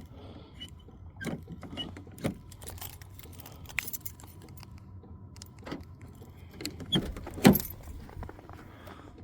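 Scattered clicks, clinks and knocks of small objects being handled and set down. The loudest knock comes about three-quarters of the way through.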